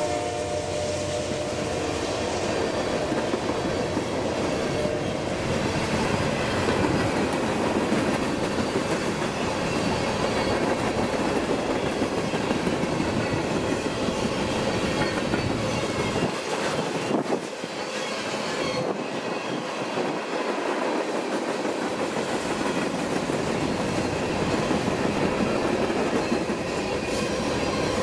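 Freight cars of a passing train, tank cars then covered hoppers, rolling by close at hand: a steady rumble and clatter of steel wheels on the rails.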